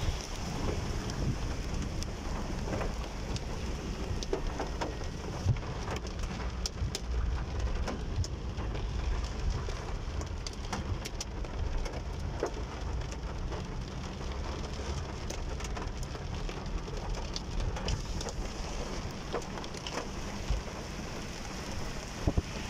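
Heavy rain and hail hitting a car's roof and glass, heard from inside the cabin. It is a steady patter with many sharp ticks of single stones, over a low rumble.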